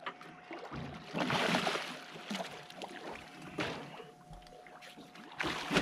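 Hooked shark thrashing at the surface beside the boat, splashing water in several irregular surges, the loudest about a second in.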